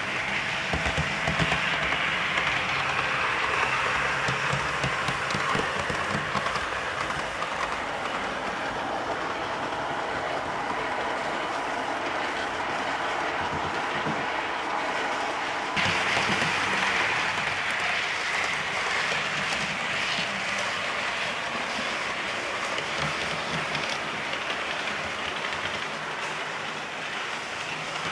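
Model trains running on a layout: a steady rolling, whirring noise of metal wheels on track and small electric motors. It changes abruptly just over halfway through.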